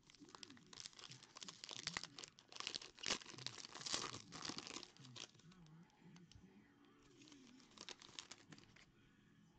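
Foil wrapper of a trading-card pack being torn open and crinkled by hand: dense crackling, loudest in the first half, then softer scattered crinkles as the pack is peeled back.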